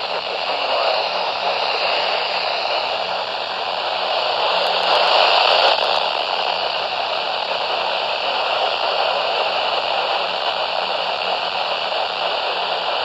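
Steady radio static: a weather radio receiver hissing on a weak or empty signal, swelling slightly about five seconds in.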